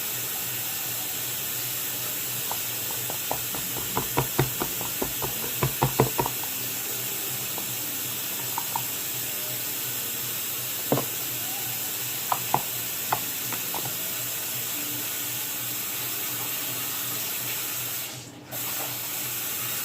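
Water running steadily from a tap, waiting for it to run hot, with scattered light knocks and clinks of a bowl or utensils; the running sound drops out for a moment near the end.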